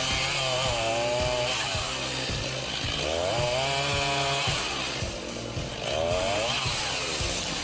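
Two-stroke chainsaw engine revving up and easing off three times in a row.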